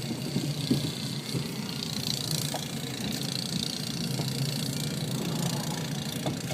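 Plow truck's engine running steadily, with a hiss rising and falling in the middle.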